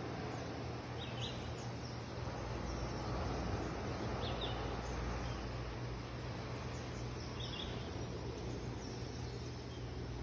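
Steady sea surf with a low rumble, and a bird giving short high chirps about three times over it.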